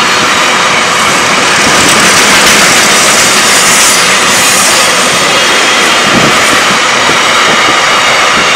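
Freight train of container flat wagons rolling past close by: a steady, loud rush of steel wheels on rails.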